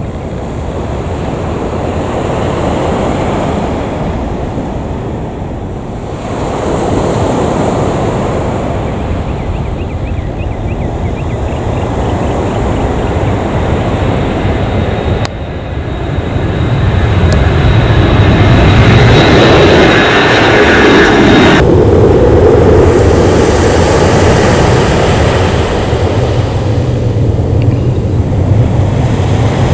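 Airbus A321-211 jet airliner's twin turbofan engines at takeoff power: a loud, steady rushing roar. It breaks off abruptly about halfway, then returns louder with a low drone as the airliner lifts off and climbs away, and shifts abruptly again about two-thirds in.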